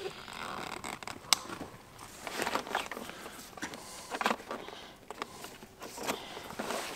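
Camping gear being handled and packed: irregular rustling, crinkling and zipper-like sounds broken by small clicks, with one sharp click about a second in.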